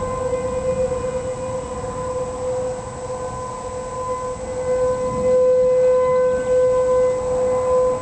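Outdoor tornado warning siren sounding a steady wail at one unchanging pitch, the signal of a tornado warning. It swells louder about five seconds in.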